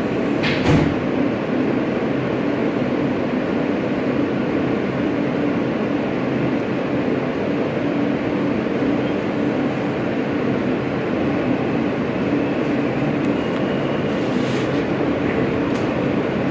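Alstom R160A New York City subway car running, heard from inside the car: a steady rumble of wheels on rail with a steady low tone beneath it. A short hiss comes about half a second in.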